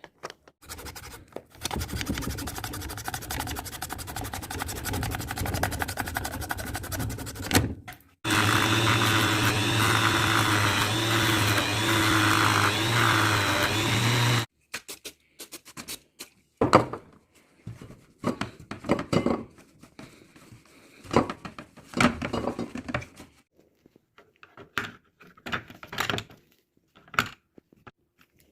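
A power tool's electric motor runs for about six seconds, stops briefly, then runs again louder and steadier for another six seconds before cutting off. It is followed by a string of irregular short knocks and clicks.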